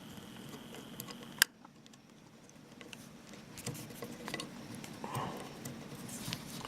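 Small metal clicks and light scraping of a screwdriver working a screw into a revolver's frame, with one sharp click about a second and a half in.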